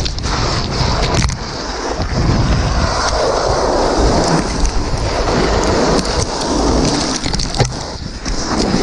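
A skier's fall and slide down a steep snow slope, heard from a body-worn camera: a loud, rumbling hiss of body, skis and poles scraping over hard snow, with snow spraying against the microphone. A few sharp knocks stand out, two about a second in and one near the end.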